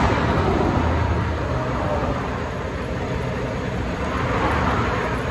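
Freeway traffic passing close by: a steady rush of tyre and engine noise with no clear pauses.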